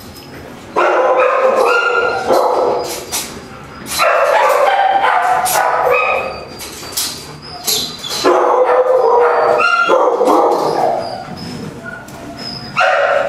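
Dogs in shelter kennels barking and yipping, several voices overlapping, in loud bouts with short lulls between.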